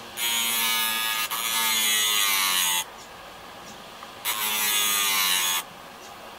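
Steel chisel tip ground against the spinning disc of an opened computer hard drive used as a mini grinder: a hissing grind with a small motor's whine, twice, about two and a half seconds and then about one and a half seconds, the pitch sinking a little while the tool bears on the disc.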